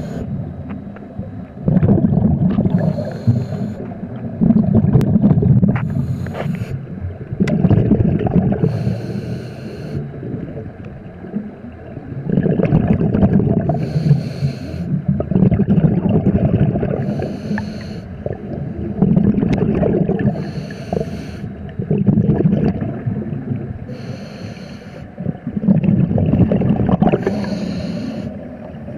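Scuba diver breathing through a regulator underwater: a bubbling rumble of exhaled air alternating with a short hiss on each inhale, a breath cycle every few seconds, with occasional small clicks.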